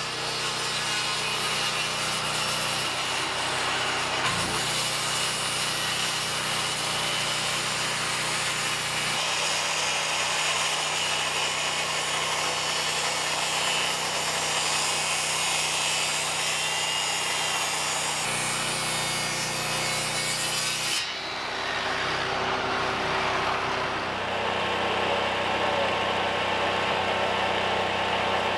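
Power tool working pine wood, with a motor running steadily. About 21 seconds in, the rasping of the wood stops while the motor keeps running.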